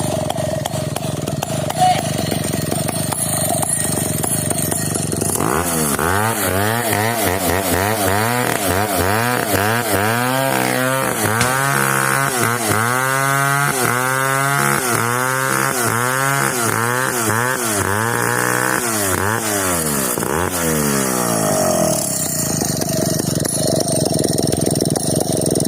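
Stihl 070 two-stroke chainsaw running loud and continuously while felling a coconut palm. Through the middle stretch its engine pitch swings up and down again and again under the load of the cut, and it runs steadier near the start and end.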